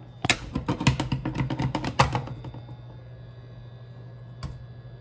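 Thin plastic wrapping being handled and crumpled in the hand: a rapid run of crinkling crackles for about two seconds that then stops. A steady low hum runs underneath.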